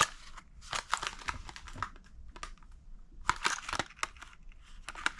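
Packaging crinkling and rustling in bursts as newly bought electrical outlet receptacles are handled and shown.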